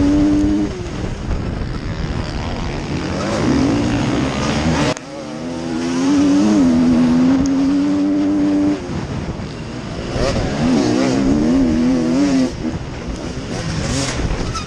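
KTM dirt bike engine at close range, revving hard and rising and falling with the throttle as it races. The throttle is shut abruptly about five seconds in, the engine is then held high for a few seconds, and it revs up and down again near the end.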